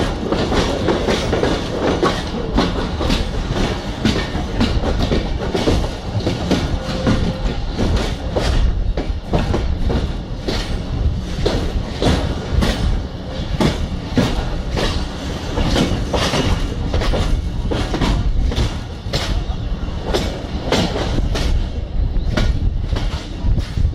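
Railway train running on the track, its wheels clattering over the rails in a rapid, irregular stream of clicks over a steady low rumble.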